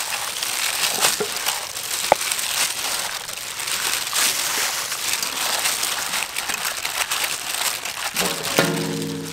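Thin plastic food-prep gloves crinkling and rustling as hands knead and toss flour- and egg-coated chicken legs in a stainless steel bowl, with many small crackles. A short pitched sound comes in near the end.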